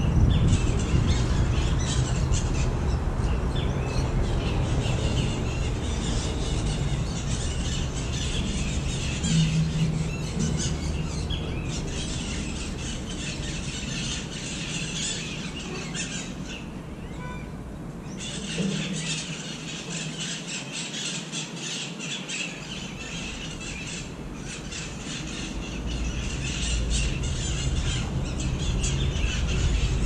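A flock of parrots squawking and screeching, many shrill calls overlapping into a dense chatter, over low background noise.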